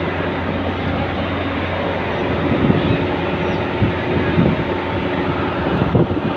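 Steady low rumble of heavy engines running, with a few short knocks and clanks in the second half.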